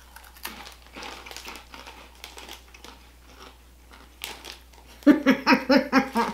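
Nik Naks corn-puff crisps crunching as they are bitten and chewed: a run of small crackly crunches. About five seconds in, a short, loud, pulsing voice sound.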